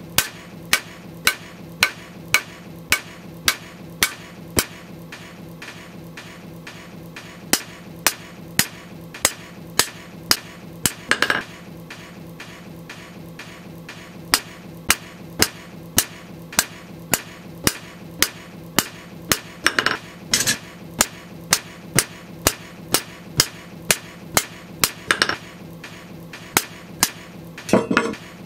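Hand hammer striking a steel knife blade forged from a leaf spring on an anvil, in sharp, evenly paced blows about two a second. There is a pause of about three seconds a few seconds in, and a steady low hum underneath.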